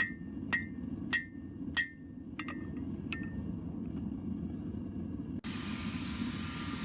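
Hand hammer striking hot steel on an anvil, ringing blows a little over half a second apart, then a few lighter taps. About five seconds in, an angle grinder switches on and runs with a steady hiss and whine.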